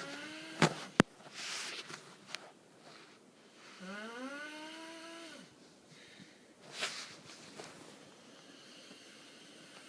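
Snoring: two drawn breaths, about four seconds apart, each carrying a whistling note that rises in pitch, with breathy hisses between them. Two sharp clicks come close together a little under a second in.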